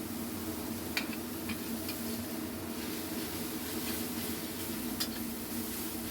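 Papaya stir-fry cooking in a pan with a steady sizzle, a spatula clicking against the pan a few times.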